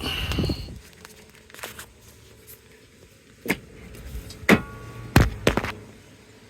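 A metal bash plate being handled and fed into place under a car: a short scrape at the start, then a handful of sharp metallic knocks and clanks, one of them ringing briefly.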